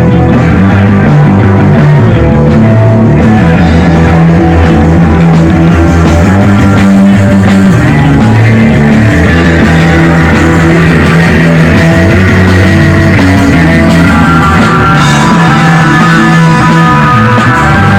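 Loud, steady rock music with electric guitar and drums.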